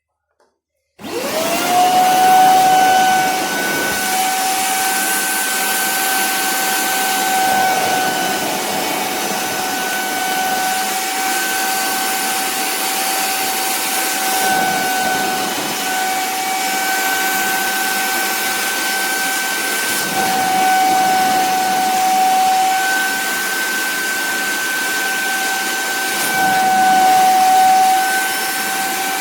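Kärcher SE 3 Compact wash-vacuum's suction motor switching on about a second in, spinning up with a rising whine, then running steadily: a high whine over a rush of air.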